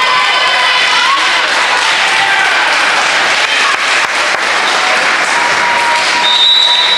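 Crowd applauding and cheering in a gymnasium, a steady wash of clapping with voices calling out over it. A short high steady tone sounds near the end.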